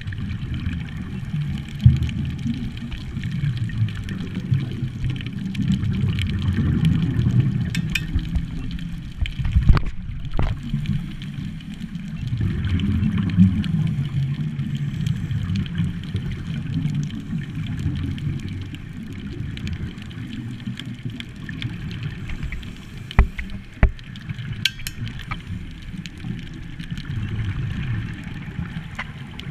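Muffled underwater rumble of a scuba diver's regulator exhaust bubbles, swelling and fading over several seconds with each breath. A few sharp clicks or knocks sound over it.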